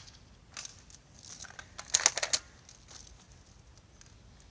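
Spring-powered airsoft M4A1 rifle being handled and cocked between shots: a faint click, then a quick cluster of sharp plastic clicks and rattles about two seconds in.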